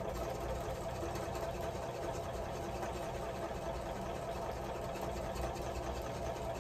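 Sewing machine running at a steady speed, stitching a seam, then stopping near the end.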